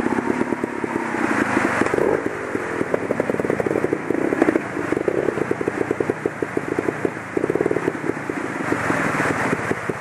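Trials motorcycle's single-cylinder engine running at low revs in rapid, even pops that swell and fade with small throttle openings. The rush of a waterfall sounds underneath.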